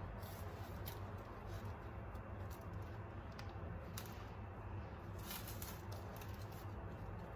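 Faint, scattered clicks and taps over a steady low hum.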